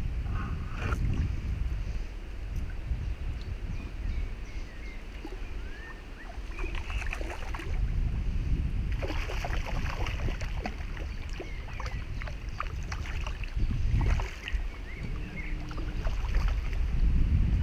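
Wind rumbling on the microphone and water lapping against a small boat, with scattered handling clicks and short bird chirps.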